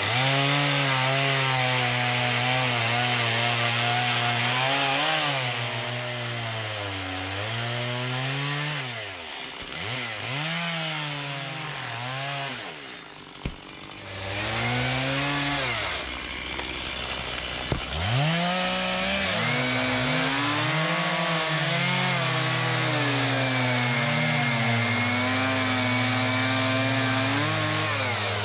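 Stihl chainsaw cutting through a tree trunk, its engine pitch sagging and recovering under load. Twice near the middle it eases back toward idle, then it cuts steadily again to the end.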